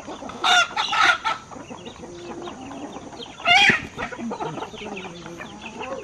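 A free-range flock of hens and roosters clucking, with three short, loud calls: two in the first second and one about three and a half seconds in.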